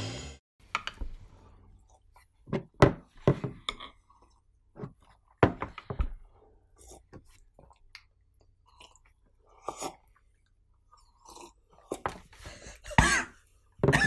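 Two people sipping and slurping from ceramic mugs, with swallows and soft mouth noises coming as scattered short clicks and slurps between near-silent gaps. Laughter breaks out near the end.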